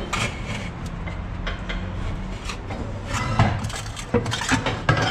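Irregular metal knocks and clanks, some with a short ring, from exhaust parts such as the removed rear muffler being handled; the loudest come in the second half.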